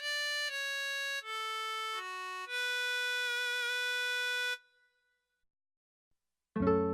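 Artesia PE-88 digital piano playing a slow single-note line on a sustained voice, each note held steady and stepping in pitch, the last one wavering slightly. The notes stop about four and a half seconds in, and after a two-second pause a different voice starts with loud notes that strike and fade.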